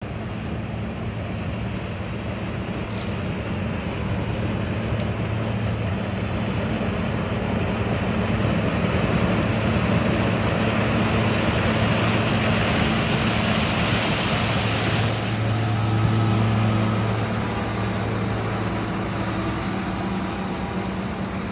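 John Deere S760i combine harvesting corn: a steady engine hum under the broad noise of the machine working through the crop, growing louder over the first half as it comes closer.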